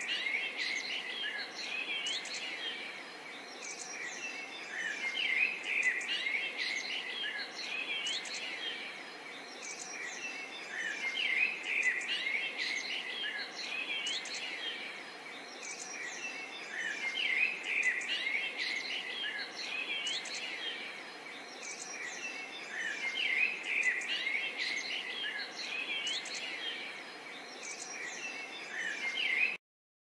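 A chorus of many birds chirping and twittering over a steady background hiss, the calls swelling and easing about every six seconds. It starts suddenly and cuts off abruptly near the end.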